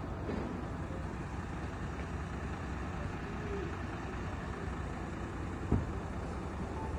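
Car engine idling steadily, with one brief thump near the end.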